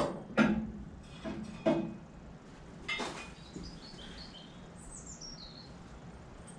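A few sharp knocks and clanks in the first two seconds and one more about three seconds in, ringing briefly. Then a bird chirps, a short run of high notes falling in pitch.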